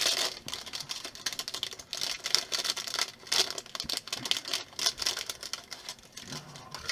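Small plastic building bricks clicking and rattling as they are picked up and pressed together, with a clear plastic parts bag crinkling. The clicks come irregularly, several a second.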